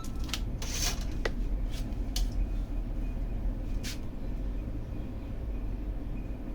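A few light clicks and knocks, with a brief scrape about a second in, over a steady low rumble.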